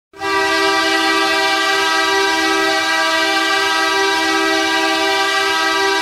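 Ice hockey arena goal horn blowing one long, steady blast, a chord of two low notes, signalling a goal.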